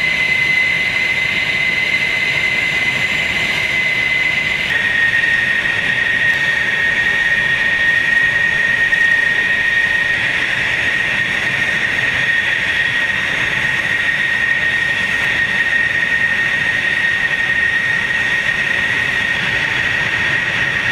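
Jet engines of military aircraft running on the ground, a steady high whine over a rushing hiss; the whine drops a little in pitch about five seconds in.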